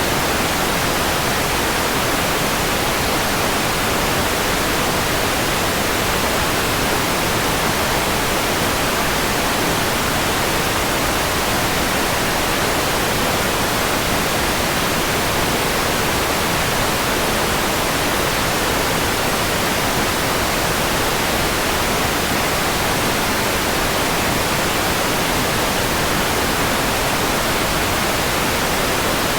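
Steady synthetic white noise: an even, unchanging hiss spread across the whole range from low to high.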